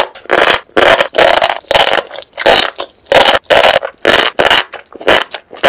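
Close-miked eating sounds of sauced enoki mushrooms and octopus: wet chewing and slurping in short loud bursts, about two a second.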